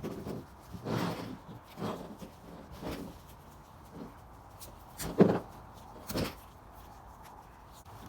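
Handling noises of fiberglass exhaust wrap being pulled and wound around a metal turbo downpipe: irregular rubbing and scraping strokes about once a second, with a sharper knock about five seconds in.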